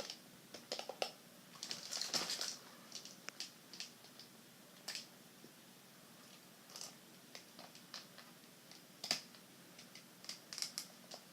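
Scattered small clicks and rustles of a plastic toy dog being handled while its batteries are checked, with one sharper click about nine seconds in.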